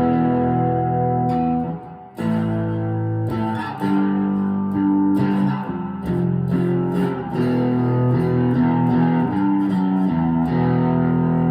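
Chapman ML3 Pro Thinline electric guitar played through an amplifier with a beefy tone: chords let ring, a brief break about two seconds in, then a run of changing chords and picked notes.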